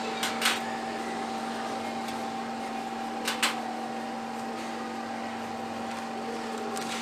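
Small electric blower running with a steady hum. Metal tongs click twice in quick pairs against a stainless steel tray, once just after the start and again a little over three seconds in.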